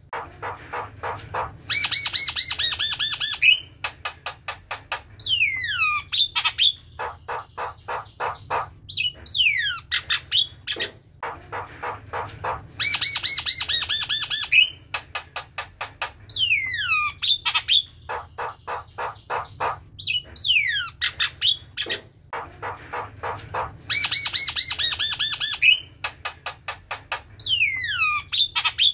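Javan myna (jalak kebo) singing its chattering song: steep downward-sliding whistles, fast runs of clicking notes and buzzy rasping phrases. The same sequence of phrases comes round about every eleven seconds.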